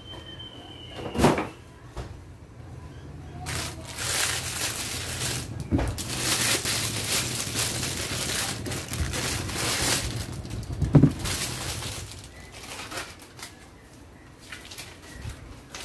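Thin clear plastic bag crinkling and rustling as a laptop AC adapter is unwrapped from it. There is a knock about a second in and another near the end of the rustling, from the adapter being handled on the desk.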